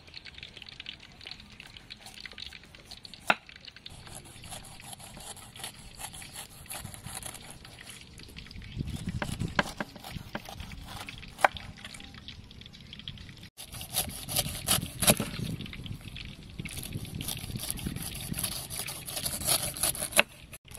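A kitchen knife slicing the rind off a whole pineapple on a wooden chopping board: wet, crunchy cuts through the skin and a few sharp taps as the blade meets the board.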